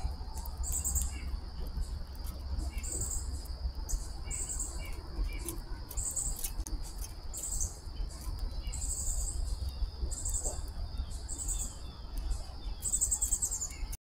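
Insects trilling: a steady high trill under a high buzzy pulse that repeats about once a second, with faint chirps of small birds and a low rumble underneath.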